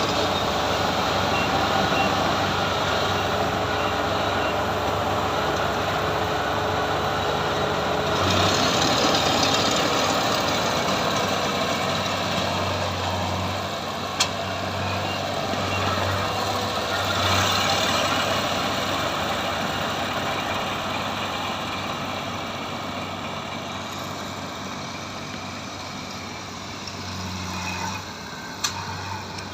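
Combine harvester running steadily, a constant engine hum under a broad mechanical rush, with a couple of brief sharp clicks.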